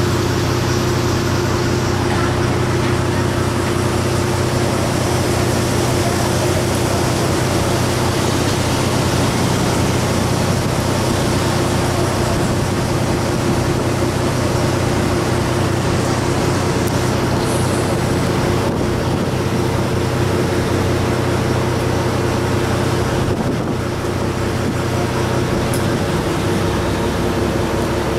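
Car ferry's engine running steadily with a low hum, mixed with wind on the microphone. Near the end the lowest part of the engine note drops away.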